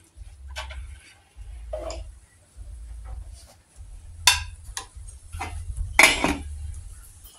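Serving utensils and dishes clinking as food is dished out onto a plate: several short, sharp clinks, the loudest about six seconds in, over a low rumble that comes and goes.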